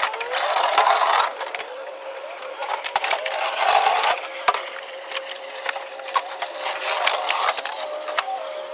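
Repeated knocks, clatter and rustling of goods being handled and stacked while a van is packed, over a steady high tone.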